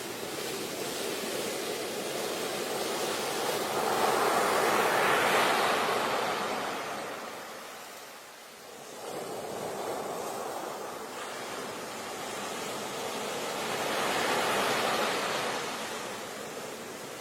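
Surf rushing in and drawing back, swelling twice about ten seconds apart.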